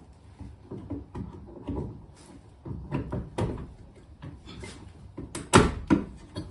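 EV charger plug being worked into a NEMA 14-50 outlet in a weatherproof wall box: scattered plastic-and-metal knocks, clicks and scrapes, with the loudest clack about five and a half seconds in as the plug seats and the charger powers up.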